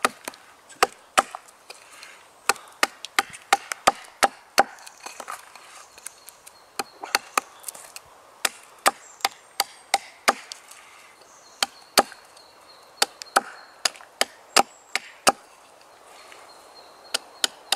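Short, sharp chopping strikes into wood, coming in quick irregular runs with a brief pause near the end, as small wooden stakes are cut to points.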